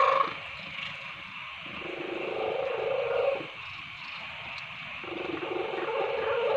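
Domestic cat purring, rising and falling in slow swells about every three seconds.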